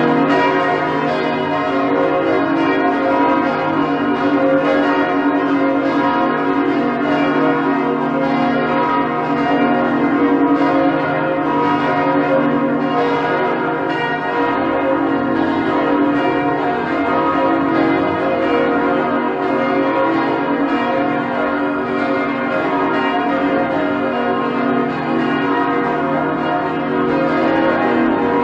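Church bells ringing continuously. The strikes follow close on one another, so their ringing overlaps and never dies away.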